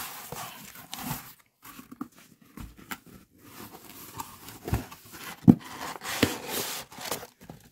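Packing tape being peeled and torn off a cardboard box, with scratchy cardboard and paper rustling as the box is handled. Several short knocks come in the second half as the box is moved and its lid opened, the sharpest about five and a half seconds in.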